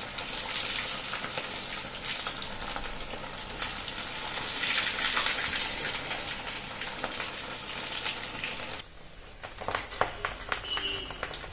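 Samak-rice and potato cutlets deep-frying in hot oil in an iron kadai, a dense steady sizzle and crackle that is loudest about halfway through. The sizzle drops off sharply near the end, followed by a few light clicks.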